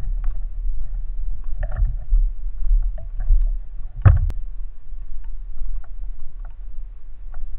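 Low, uneven rumble of wind and handling noise on a camera mounted on a carried speargun during walking, with scattered light clicks of gear and one sharper knock about four seconds in.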